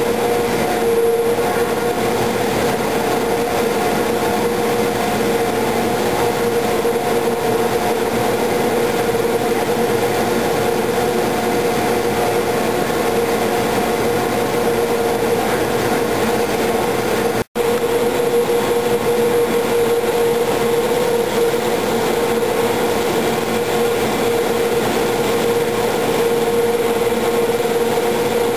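Cable car winding machinery running: electric drive motors turning the large sheave wheels that haul the cable, a loud, steady mechanical hum with a clear mid-pitched tone. The sound drops out for an instant about two-thirds of the way through.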